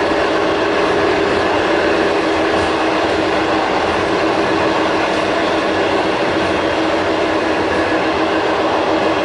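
Passenger train running steadily at speed, heard from inside the carriage: an even rumble and rush of running noise with a constant hum.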